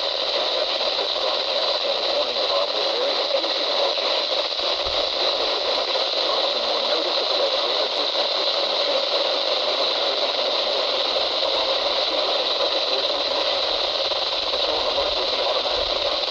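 Steady hiss of radio static from a weather-band radio receiver with no clear signal coming through. It has a thin, tinny sound and does not change.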